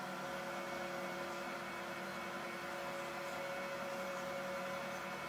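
Benchtop spindle sander running with a steady hum while a small piece of wood is held against its sanding drum to round the edges.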